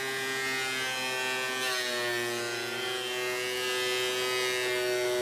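DeWalt benchtop thickness planer running steadily with a high motor whine. About two seconds in it gets louder and brighter and its pitch dips briefly as a board goes through the cutterhead.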